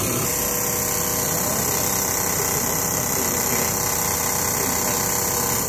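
Steady machine noise: a strong high hiss over several steady humming tones and a low rumble, cutting off suddenly at the end.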